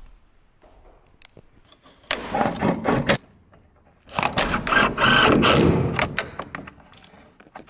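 Crank operator of a casement window being turned by hand: a gritty, rapid ticking grind in two spells, a short one about two seconds in and a longer, louder one from about four seconds, as the sash is cranked open.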